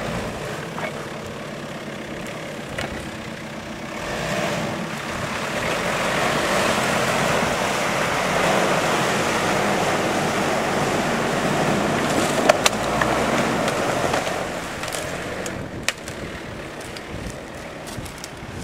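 Jeep Cherokee's engine running under load as it drives through a water-filled rut, its tyres splashing through the water, loudest in the middle and then easing. A couple of sharp knocks come toward the end.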